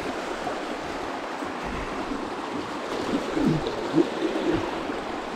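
Creek water rushing steadily over rocks in a small mountain trout stream.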